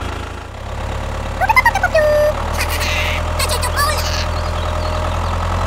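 Tractor engine idling steadily with a low hum. Short squeaky voice-like sounds bend up and down about a second and a half in, and brighter high sounds follow around three seconds in.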